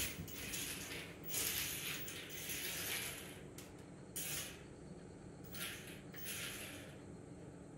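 Mini remote-control toy car driven in several short, faint bursts, its small electric motor and gears whirring briefly each time it moves.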